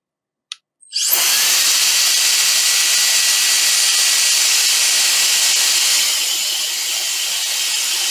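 Small handheld electric air blower spinning up with a rising whine about a second in, then blowing a steady rush of air with a thin high whine, and winding down right at the end. It is blowing on a hot laptop motherboard to cool it after desoldering.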